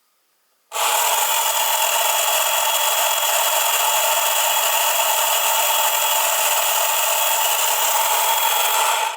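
Small electric motor in a Popy Kamen Rider 1 toy transformation belt whirring as it spins the belt's windmill, a steady buzzing gear-and-motor drone that switches on about a second in and cuts off suddenly near the end.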